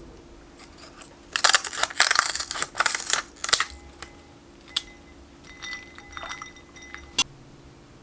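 Dry sheet gelatin crackling as it is handled into a glass bowl of ice water, a run of dense crinkling about two seconds long. A few light clinks with a faint glassy ring follow, then one sharp click near the end.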